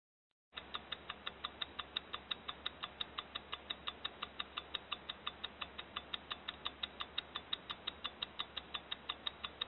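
Rapid, evenly spaced clicking, about five clicks a second and all of the same strength, over a faint low hum.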